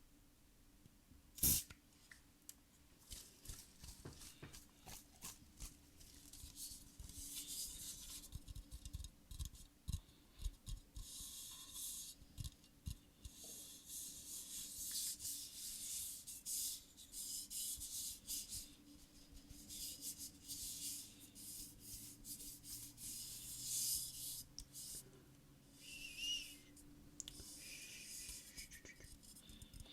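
Close-miked scratching and rubbing on a surface, crisp and crackly with many small clicks, after a single sharp tap about a second and a half in.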